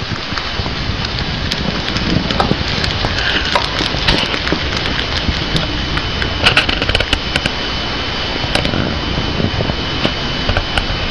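A Syrian hamster chewing crisp bok choy close to the microphone: irregular small crackling clicks from the bites, over a steady loud rushing hiss with a faint high whine.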